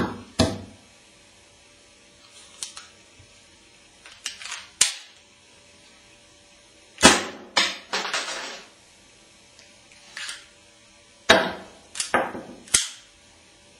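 8mm blank pistol firing shotgun primers seated in homemade 8mm tube shells: sharp cap-like pops, the loudest about halfway through and again near the end. Clicks and clatter of the pistol being handled and worked come between the pops.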